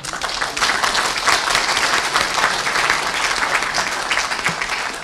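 Audience applauding, a dense patter of many hands clapping that swells just after the start and holds steady.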